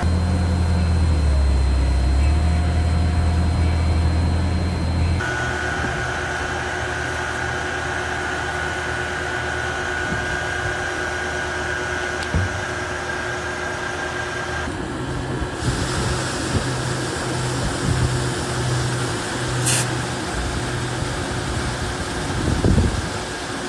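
Forklift engine running with a strong low hum. About five seconds in, it changes suddenly to the steady hum and whine of pumps and motors in a fire-retardant mixing plant, with a few short knocks and a louder thump near the end.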